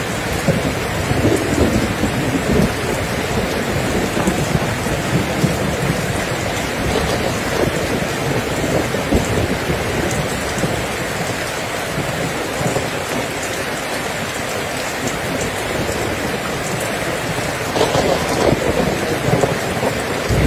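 Steady heavy rain falling, with low rumbles of thunder; the rumble swells again near the end.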